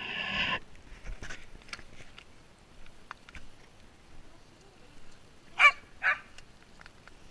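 Dog barking: two short, loud barks about half a second apart near the end, after a longer call at the very start.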